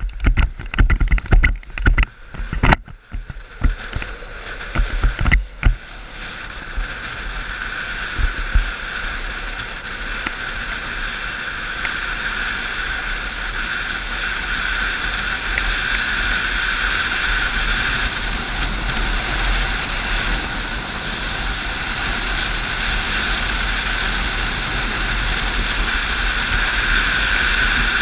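Wind rushing over the microphone and longboard wheels rolling on asphalt at downhill speed, choppy and gusty for the first several seconds, then a steady rush that grows gradually louder as the speed builds.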